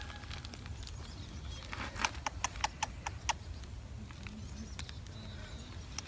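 A quick run of about seven sharp clicks, lasting just over a second, starting about two seconds in, over a low steady rumble.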